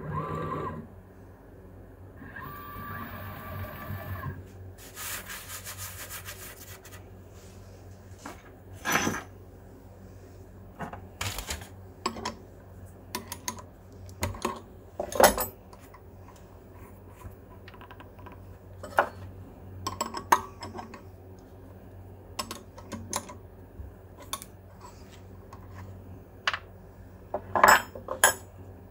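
Irregular clicks, knocks and scraping of small hard objects over a steady low hum, with a longer stretch of scraping about two to seven seconds in.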